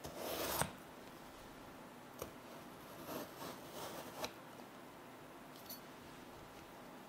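Chef's knife slicing down through a raw peeled potato in a series of short crisp cuts, each ending in a sharp tap as the blade stops against the chopsticks laid on the cutting board. There is one cut right at the start, a tap about two seconds in, and a quick run of cuts between three and four and a half seconds.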